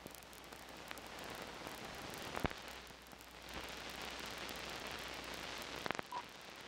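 Optical soundtrack noise from a 16mm film print's leader: a faint steady hiss with crackle and a low hum, a sharp pop about two and a half seconds in and a couple more near the end. Just after them a very short beep, the countdown leader's sync pop.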